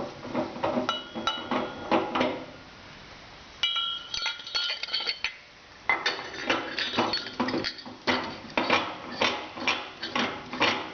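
Stainless steel parts of a Hobart mixer grinder clanking and clinking: irregular metal knocks with short ringing tones. There is a quieter lull about three seconds in, then a quicker run of clanks from about six seconds.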